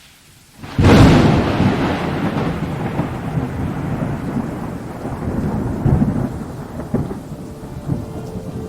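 A sharp thunderclap about a second in, then rolling thunder rumbling on over steady rain, with further swells of rumble.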